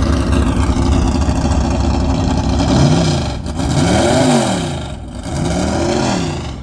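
Race car engine running with a loud, deep idle, then revved up and back down three or four times from a little under halfway in.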